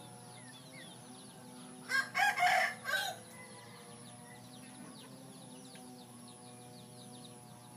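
A rooster crows once, a loud call of about a second that starts about two seconds in. Around it is a faint, steady chorus of high, short chirps from small birds.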